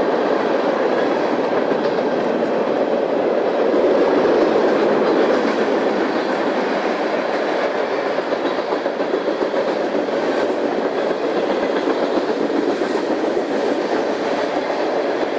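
Freight train rolling past, its cars running steadily along the rails.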